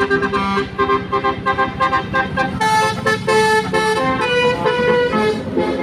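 Bus 'telolet' musical horn playing a tune: a quick run of short notes, then longer held notes from about halfway through.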